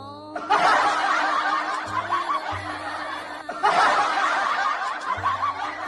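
Laughter over background music, in two long stretches broken briefly about three and a half seconds in.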